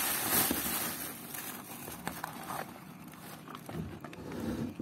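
Thin plastic bag rustling and crinkling, then paper food wrapping being unfolded, as a wrapped packet of rice is opened by hand. The crinkling is loudest at the start.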